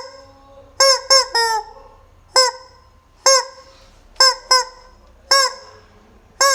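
Rubber chicken toy squeezed again and again, giving about ten short, loud squawks that rise and fall in pitch, some in quick pairs.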